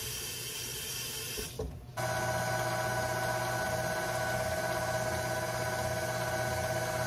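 Electric stand mixer motor starting about two seconds in and running steadily with a whine and a low hum, beating creamed butter and sugar before the eggs are added. A softer steady hiss comes before it.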